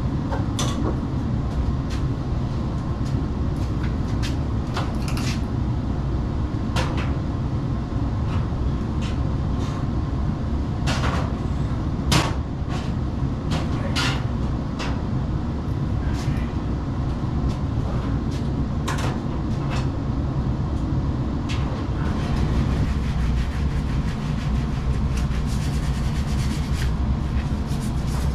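Knocks, clicks and clatter of sheet-metal ductwork and tools being handled, with one sharper knock near the middle, over a steady low mechanical rumble.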